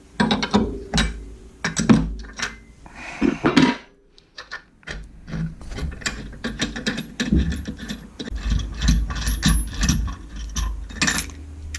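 Ratchet wrench clicking in short runs, with knocks of metal parts, as the belt tool is turned out of an ATV's secondary clutch after the drive belt is seated. The clicks come irregularly at first and in quicker runs in the second half.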